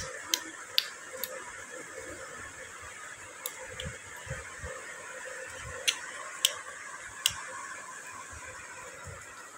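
Sharp finger snaps, about eight, irregularly spaced: three in the first second or so and more in the middle of the stretch, over a steady background hum.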